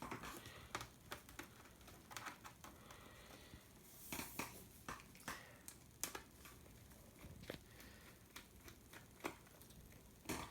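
Faint, scattered small clicks and light scratching of a screwdriver and fingers working on a laptop's screen panel, as the screws at its four corners are taken out.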